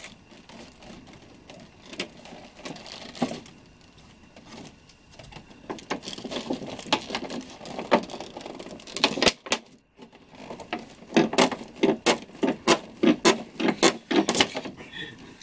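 Stiff clear plastic packaging crinkling and crackling as it is handled and worked apart. The snaps come in quick succession in the second half.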